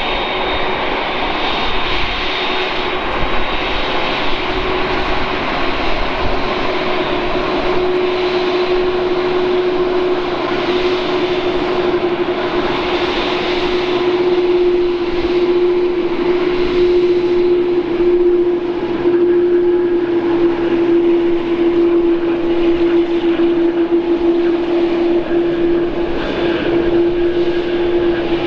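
Two GEnx-1B turbofan engines of a Boeing 787-9 running at taxi idle: a steady jet whine and rush with a strong humming tone that grows louder about a quarter of the way in as the airliner taxis close by.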